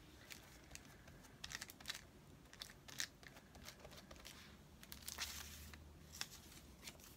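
Faint rustling and crinkling of thin magazine paper being handled and pressed onto a notebook page, with a glue brush working over the paper and scattered small ticks.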